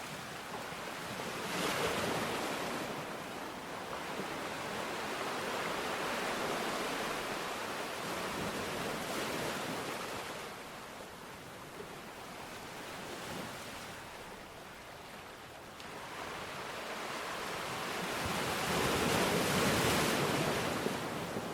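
Ocean surf washing ashore, swelling and fading in slow surges, with the loudest wash near the end; wind on the microphone.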